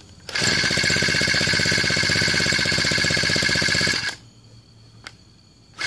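26cc weed eater engine running on HHO (hydrogen-oxygen) gas fed from a balloon, firing rapidly and evenly for about four seconds before cutting out. Right at the end comes a sudden, very loud bang: a backfire up through the carburettor ignites the gas in the balloon, which explodes.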